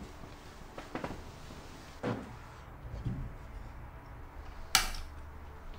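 A few soft knocks and rustles of movement by a bed, then a single sharp click near the end as a bedside table lamp is switched off, over a steady low room hum.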